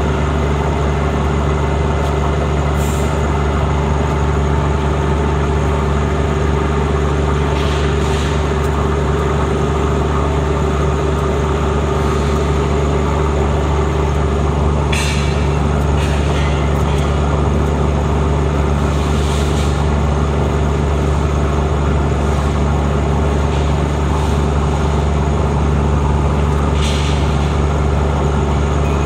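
Waste plastic film grinding machine running steadily under load, a loud constant hum with its blades churning the plastic in the drum. A few short hisses break in now and then.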